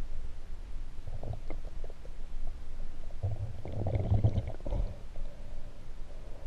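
Muffled underwater rumbling of water moving around a submerged camera. It swells briefly about a second in and again, more strongly, between about three and five seconds in.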